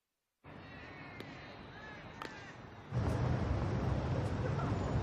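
Animated-series outdoor ambience: after a moment of silence, faint town air with a few bird chirps, then about three seconds in louder city street traffic noise with a low rumble.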